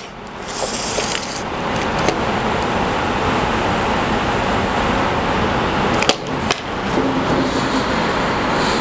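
A steady mechanical rumbling noise sets in and holds at an even level, with a couple of sharp clicks about six seconds in.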